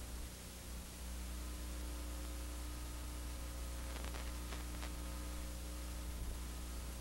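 Steady electrical hum and hiss with no other sound on a silent film transfer, with a few faint short clicks between four and five seconds in.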